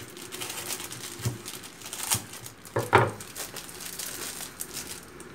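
Plastic wrapping crinkling as it is slit with a knife and peeled off a block of tempeh, with a few knocks on a wooden cutting board, the loudest about three seconds in.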